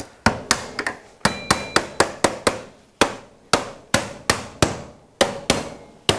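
Hammer tapping sheet-metal frame sections onto the galvanized steel casing of a multi-leaf ventilation damper. It gives a run of sharp knocks, about three a second, unevenly spaced, some coming in quick pairs.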